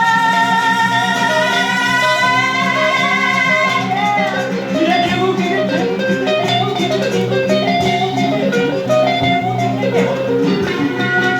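Guitar-led band music: a high note slides up and is held with a wavering vibrato for about four seconds over a moving melodic line and steady backing, then the band plays on.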